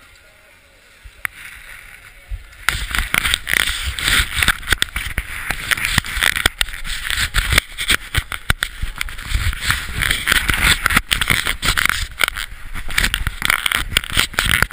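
Skis scraping over hard-packed snow, starting abruptly about three seconds in and staying loud and rough, full of rapid scratchy crackles with a low rumble under them.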